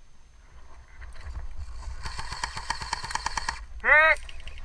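An airsoft gun firing a full-auto burst of about a dozen shots a second for roughly two seconds, with a buzzing whir under the shots. It is followed by one loud, short honk.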